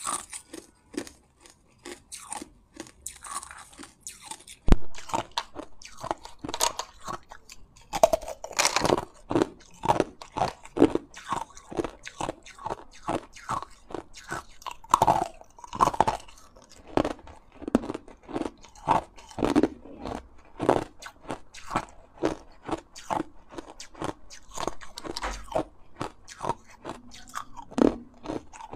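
Hard clear ice sticks being bitten and chewed close to the microphone: a dense, irregular run of crisp crunches, with one sharp, loud snap about five seconds in.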